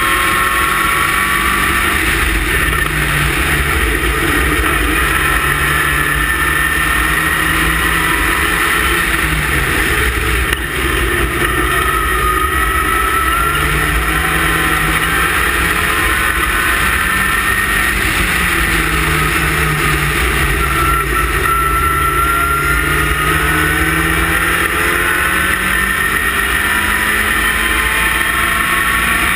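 Westfield race car's engine running hard at racing speed, heard from the open cockpit over a steady rush of noise. The engine pitch climbs and drops again and again through gear changes and corners, with a brief dip about ten seconds in.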